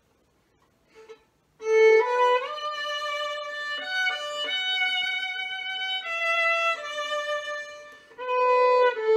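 Solo violin played with the bow: a slow melody of held notes that step up and down, starting about a second and a half in, with a steady lower note sounding beneath it.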